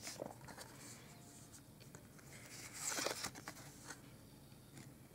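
Trading cards handled in the hands: faint clicks and rubs as the cards shift, with a brief louder card slide about three seconds in.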